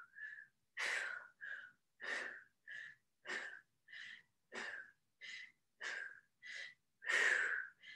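A woman breathing hard and rhythmically through a set of push-ups: about a dozen short, quick breaths in and out, with a longer, louder breath near the end.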